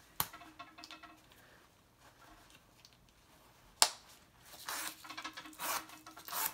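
Metal press-stud snap on a faux leather jacket's pocket flap clicking twice, a faint click just after the start and a much sharper one a little before the middle, then rustling of the polyester faux leather under the hands.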